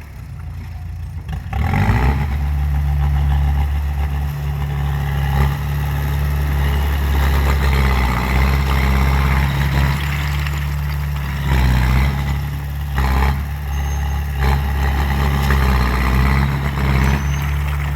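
Komatsu D20A bulldozer's diesel engine running, a steady low hum that grows louder about two seconds in and then swells slightly now and then.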